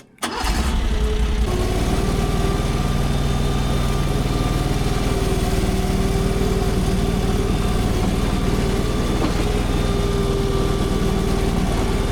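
AGT LRT23 mini skid steer's engine running loudly and steadily. It comes in abruptly just after the start, with a slight change in pitch about a second and a half in.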